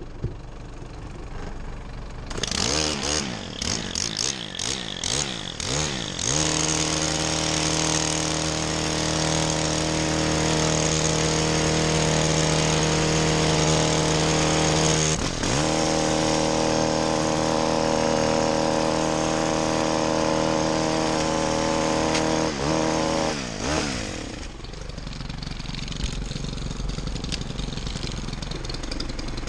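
Two-stroke petrol hedge trimmer starting with a few uneven revs, then held at full throttle for two long stretches with a brief drop between, and falling back to idle near the end.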